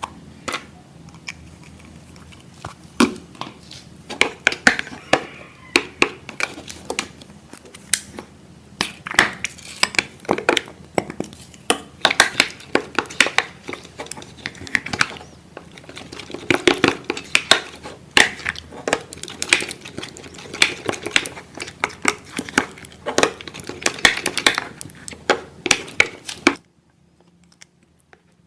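Making slime by hand: irregular crinkling and sharp clicks, with the light clink of a utensil against a bowl, stopping abruptly near the end.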